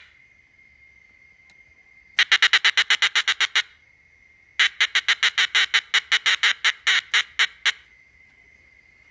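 Cicada calling close up in two bursts of rapid rattling clicks, about eight a second: a first burst of about a second and a half, then a longer one of about three seconds whose clicks slow near its end. A faint steady high whine runs underneath between the bursts.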